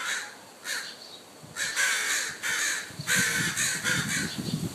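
Crows cawing in a run of harsh calls that grow louder and come closer together from about three seconds in: adult crows scolding a person near their fledgling.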